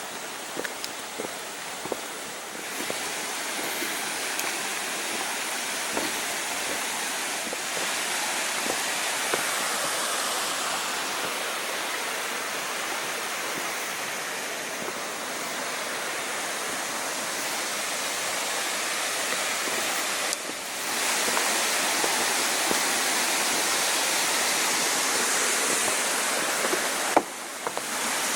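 Steady rush of flowing water from a creek, an even hiss that grows louder about two-thirds of the way through.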